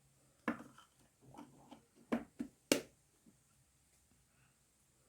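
A spoon knocking and clinking against a bowl while spoonfuls of coconut oil are scooped in: about six short, light knocks in the first three seconds, then quiet.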